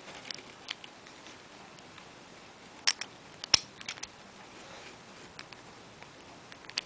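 Small plastic and metal Beyblade parts clicking and tapping as they are handled and fitted together by hand. There are two sharp clicks about three seconds in, the loudest click soon after, and a few more near the end.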